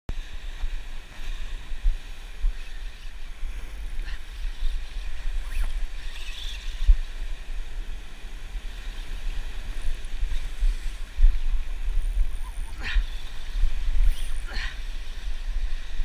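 Wind buffeting the camera microphone with a steady low rumble, over surf breaking and washing against lava rocks.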